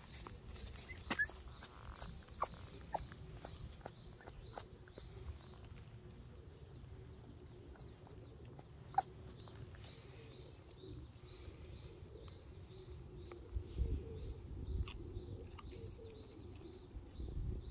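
Light scuffs and scattered clicks of a puppy's paws on dry gravelly dirt, with a bird chirping over and over in the background from about halfway through. A few dull low thumps come near the end.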